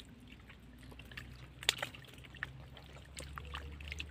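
Water trickling and splashing in small, irregular splashes and drips, with a sharper splash a little under two seconds in.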